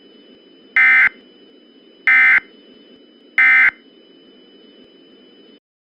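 Three short bursts of Emergency Alert System (SAME) end-of-message data tones from a NOAA Weather Radio broadcast, about a second and a quarter apart, over a faint steady radio hiss. The bursts signal the end of the tornado warning message. The audio cuts off near the end.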